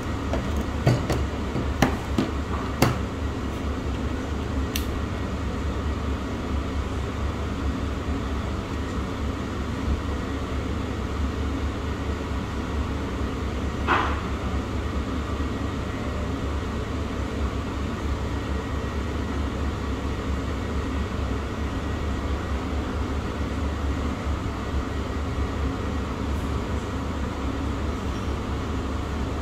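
Steady low hum of background noise, with a few sharp clicks in the first three seconds and one short sharp clink about halfway through.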